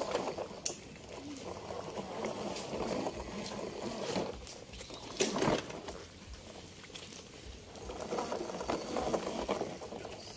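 Crackling, gritty noise of plastic toy trucks rolling over wet mud and grit, with scattered small clicks and a louder scrape or bump about five seconds in.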